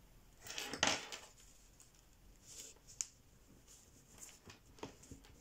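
Sheet of 80 g/m² printer paper rustling as it is folded and pressed, with a brief burst of rustling about a second in and a few small sharp clicks later, the clearest about three seconds in.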